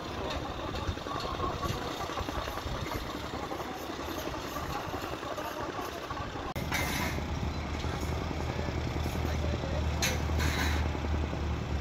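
Construction-site noise with an engine running steadily at idle. About six and a half seconds in, the engine's low, even hum becomes much stronger and continues to the end, with a few brief hissing noises over it.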